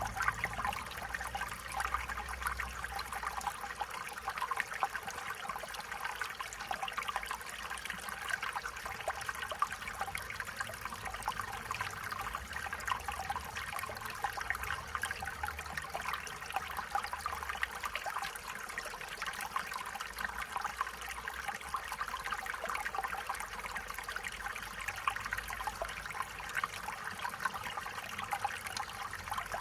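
Stream water trickling and babbling steadily over stones, a busy, even burble of small splashes.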